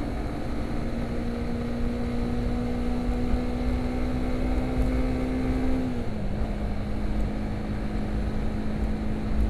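Honda CBR150R motorcycle's single-cylinder engine running at a steady cruise, with wind rumble on the microphone. The engine note holds steady, then drops slightly in pitch about six seconds in.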